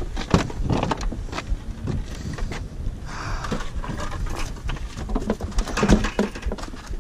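Irregular knocks, clatter and rustling as fishing gear and a wire stringer of fish are handled at an open car boot, over a low rumble. The busiest handling comes near the end.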